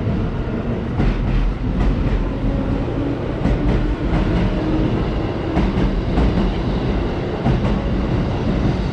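Electric commuter train rolling along the platform track, a steady low rumble with repeated clacks of its wheels over the rail joints.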